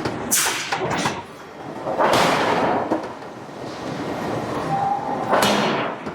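Hydraulic forging hammer striking a steel billet: several heavy blows at uneven intervals, each followed by a noisy rushing tail.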